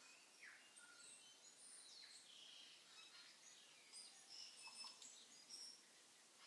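Faint, scattered high-pitched chirps and short whistles over a low hiss, busiest around four to five seconds in.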